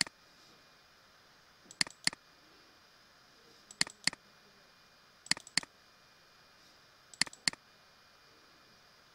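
Computer mouse double-clicked four times, about every two seconds, each a pair of sharp clicks, while title presets are picked for preview. A faint steady hiss of room tone lies underneath.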